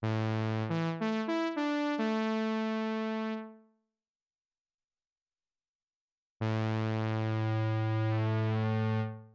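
Teenage Engineering OP-1 Field synthesizer played on its keys. A few quick notes settle into a held chord that fades out about three and a half seconds in. After a gap of silence, a second held chord with a deep bass note starts about six seconds in, shifts slightly partway through and fades away near the end.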